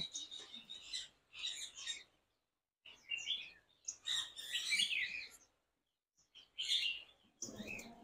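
Small caged songbirds chirping and twittering in short bursts with brief silent gaps between them.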